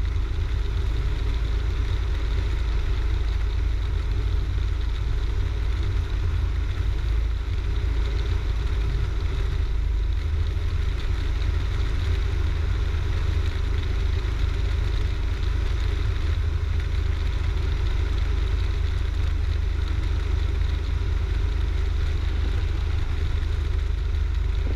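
Cessna 172's piston engine and propeller droning steadily at reduced power in a descent, heard from inside the cabin.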